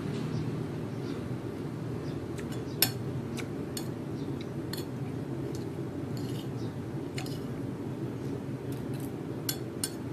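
Metal spoon and fork clinking and scraping against a plate of rice in scattered sharp clicks, one clink about three seconds in standing out as the loudest, over a steady low rumble.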